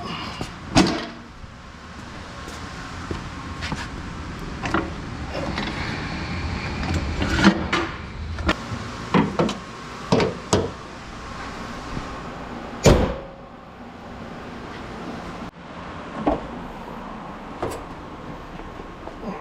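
A series of irregular sharp clicks and knocks over a steady low background hum, with the loudest knock about 13 seconds in.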